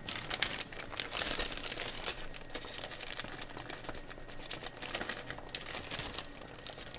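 Plastic zip-top storage bag crinkling as it is pulled open and handled, with many small irregular crackles while chopped green onions are shaken out of it.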